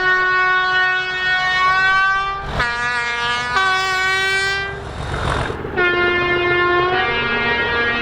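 Two-tone train horn sounded in three long blasts, each stepping between a higher and a lower note partway through. A short burst of rushing noise falls between the first two blasts, and a longer one about five seconds in.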